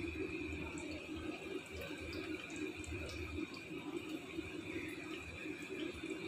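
Breaded nuggets sizzling steadily in shallow oil in a frying pan over low heat, with a fine crackle of bubbling oil.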